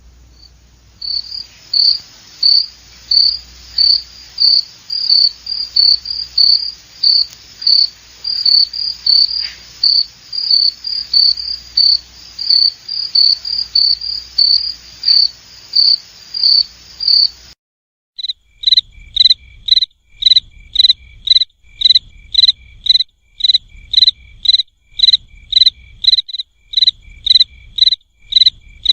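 Crickets chirping in an even rhythm, about two high chirps a second. After a short break about 18 seconds in, the chirping starts again a little lower in pitch.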